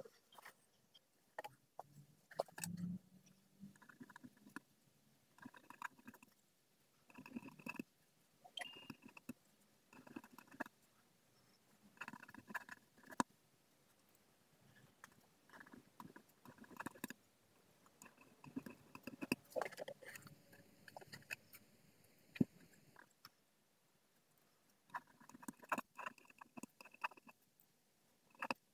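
Ballpoint pen writing on paper in short bursts, a word at a time, with brief pauses and small clicks between them.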